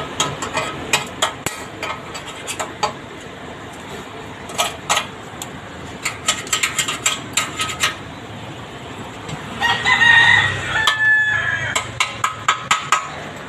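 Arc welding on a steel gutter channel: irregular sharp crackles and metallic clicks in bursts. A rooster crows once about ten seconds in.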